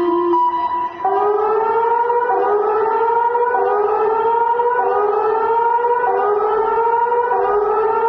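Earthquake early-warning alarm: a steady tone for about a second, then a loud rising whoop that repeats about once a second.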